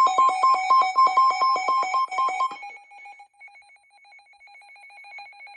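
Electronic emergency alert tone heralding a flash flood warning on a weather radio: a loud pulsing two-note beep, about five pulses a second. It drops sharply about two and a half seconds in and carries on faintly until it stops near the end.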